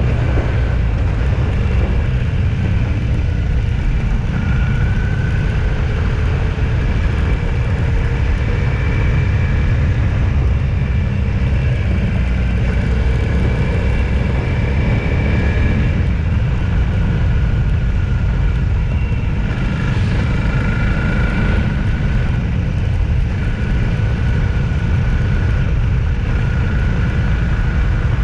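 Steady engine and road noise of a car driving at an even pace: a constant low rumble with a faint whine above it.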